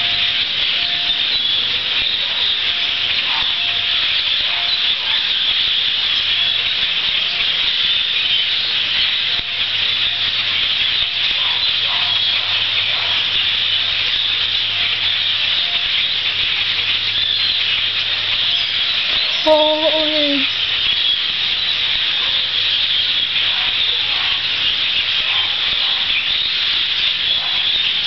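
Dense, steady din of countless calls from a huge flock of migrating birds passing overhead, a high hiss-like chatter. About two-thirds of the way through, one short lower-pitched sound rises above it.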